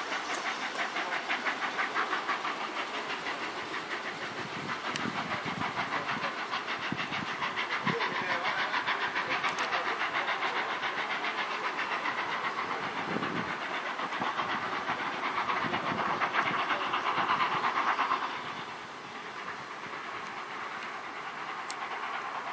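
Double-headed steam locomotives, BR Standard 'Britannia' Pacific 70000 leading an LNER A4 Pacific, working away under load: fast rhythmic exhaust beats over steady steam hiss, dropping in level about eighteen seconds in.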